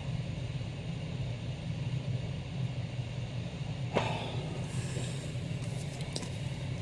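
Steady low room hum, with a single knock about four seconds in, then short papery rustles and scrapes as a comic book is picked up and handled.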